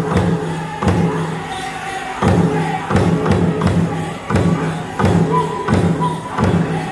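Pow wow drum group playing a chicken dance song: a big drum struck in runs of quick, heavy beats broken by short pauses, with singers' voices over it.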